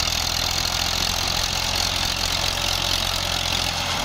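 Massey Ferguson 240 tractor's three-cylinder diesel engine running steadily under load while it tows another tractor and its loaded trolley.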